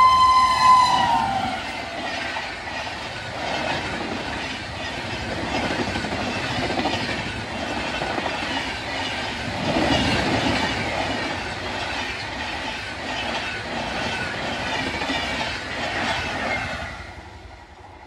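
Durgiana Express at speed: the electric locomotive's horn ends with a dip about a second in, then the train runs through, its coach wheels clattering rhythmically over the rail joints, fading away near the end.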